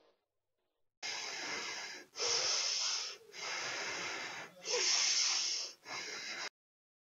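A person breathing heavily: about five quick breaths, starting about a second in, alternating softer and louder like breaths in and out.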